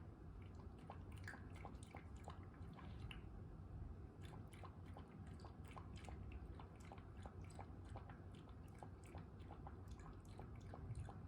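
A cat's mouth at its food or water: faint, quick wet clicks, about three a second, without a break.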